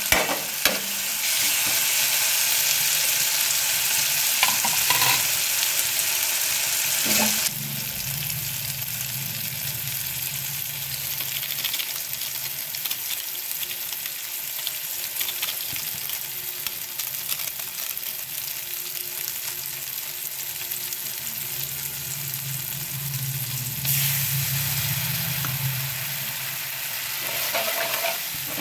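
Chopped onions and tomatoes sizzling in hot oil in a kadhai, stirred and scraped with a spatula. The sizzle is strongest for the first several seconds, drops suddenly, and swells again near the end as the stirring resumes.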